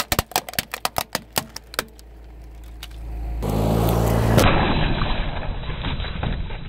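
A car tyre rolling over a plastic toy lute, which snaps and cracks about a dozen times in quick succession over the first two seconds. After a short lull a car engine hums, and from about four and a half seconds in comes the loudest part: the tyre crushing watermelon halves with a wet crunching and splattering that fades off.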